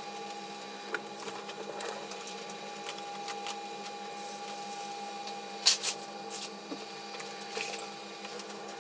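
Circuit board dipped on a solder pot's molten solder bath: a steady machine hum with a held tone throughout, a brief hiss of flux meeting the solder a little past halfway, then one sharp clack as the board is handled.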